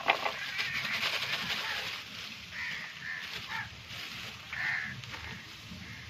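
Crows cawing several times with short separate calls, and a plastic bag rustling in the first two seconds as spice is shaken out of it.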